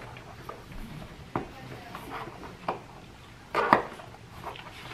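Scattered knocks and clinks as a new bicycle tire is worked onto its rim by hand, with a louder clatter about three and a half seconds in.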